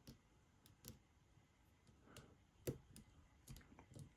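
Faint scattered clicks of a pick and tension wrench working the pins of a pin-tumbler lock with spool pins, the lock held in a false set. A few sharp ticks, the loudest about two-thirds of the way through.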